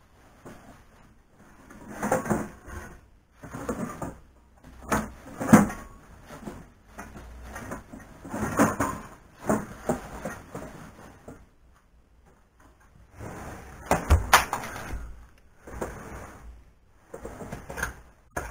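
Irregular bursts of knocking, rubbing and sliding as the parts of an OX CNC router (aluminium extrusion frame, gantry and carriage) are handled and moved, with a sharp knock about 14 seconds in.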